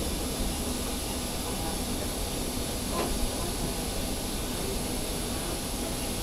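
Steady rushing air and machinery noise with a low hum, the background of an airliner being boarded, with one light click about three seconds in.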